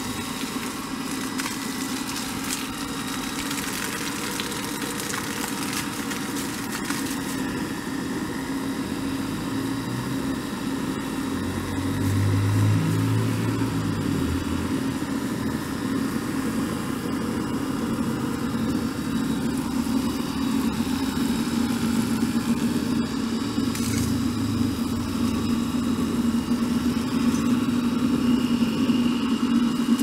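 Washing machine motor belt-driving a small centrifugal water pump, running with a steady hum. The pump is primed and delivering water with good flow and pressure, and the hum grows a little louder about twelve seconds in.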